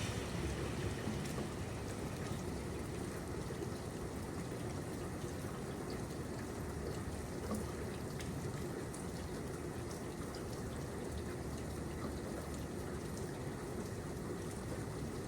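Steady rainfall: a constant hiss of rain with scattered drops ticking on surfaces.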